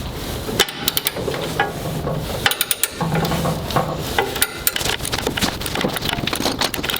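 Socket wrench worked on a rusty nut: irregular metallic clicks and clinks of the ratchet and socket, sometimes several in quick succession.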